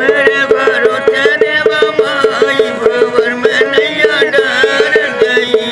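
Traditional Indian folk music: a fast, even beat of short repeated notes, about four a second, with a winding melody line above it.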